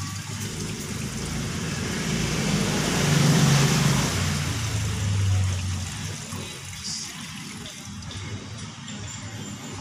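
Gasoline pouring from a plastic jug through a funnel into a Kawasaki Fury's fuel tank: a steady rushing, splashing flow that grows louder through the middle and eases off after about six seconds.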